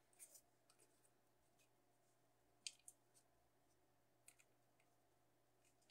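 Near silence, broken by a few faint clicks and taps as pink craft foam and a clear plastic sheet are handled.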